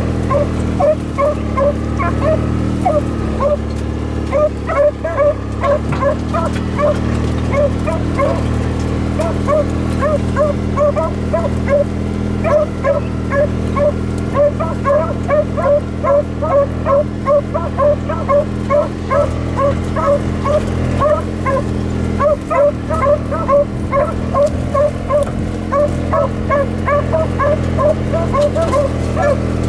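Two beagles baying on a rabbit track, a near-continuous run of short chop barks a few a second with their voices overlapping. Underneath is the steady low hum of the Kubota utility vehicle's engine.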